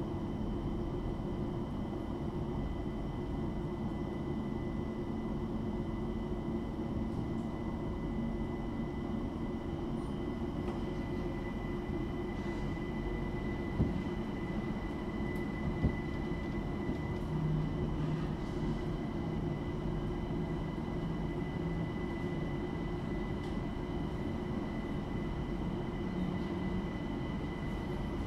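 Bombardier Class 378 Electrostar electric train heard from inside while running between stations: a steady rumble of wheels on rail with a steady high whine, plausibly from the traction motors. Two sharp clicks come about two seconds apart, halfway through.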